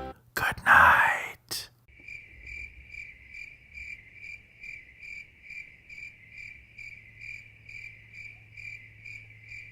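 A brief, loud hiss-like rush of noise in the first second and a half, then crickets chirping steadily, about three chirps a second.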